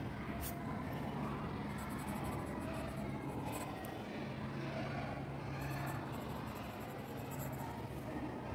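A pencil scratching across paper in two short spells while a signature is written, over a steady low background hum.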